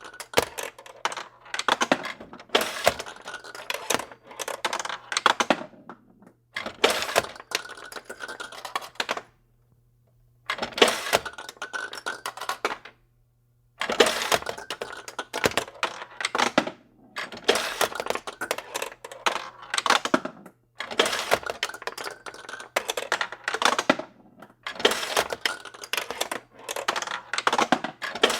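Pachinko machine in play: small steel balls clattering and rattling through the pins in dense bursts of a few seconds, broken by short pauses, over a low steady hum.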